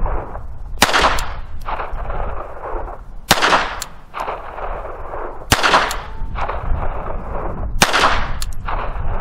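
Beretta 21A Bobcat .22 Long Rifle pocket pistol fired four times, slow single shots a little over two seconds apart. Each sharp crack is followed by a short trailing echo.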